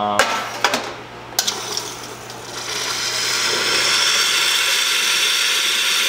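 The hot water spout of a 2004 Rancilio Classe 8 two-group espresso machine dispensing into a stainless steel pitcher. A few clicks and knocks in the first second and a half, then from about two and a half seconds in a steady hiss of hot water and steam running into the pitcher.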